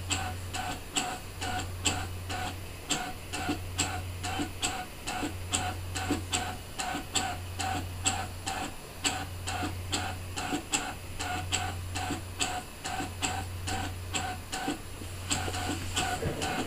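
Brother ScanNCut DX SDX1200 cutting machine running in drawing mode, its motors moving a heated foil pen over card: a regular ticking, about two to three a second, over a low hum that breaks off every couple of seconds.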